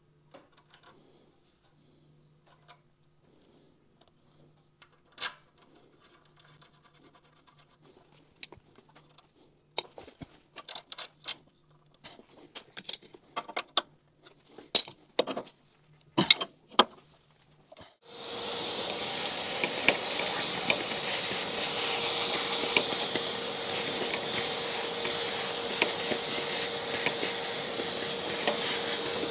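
Small metal parts and tools being handled, with scattered clicks and knocks. About two-thirds of the way through, a loud, steady machine noise with a constant whine starts up and keeps going.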